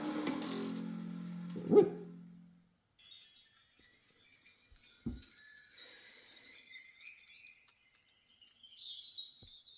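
A low, steady pitched tone fades away over the first two and a half seconds, with a sharp knock near two seconds in. After a short gap, a high tinkling jingle like small chimes plays for the rest, with a dull thump about five seconds in.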